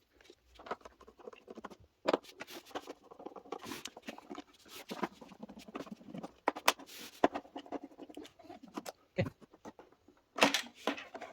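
Irregular clicks, taps and short scrapes of a plastic robot vacuum being handled and taken apart, with a cluster of louder clicks near the end.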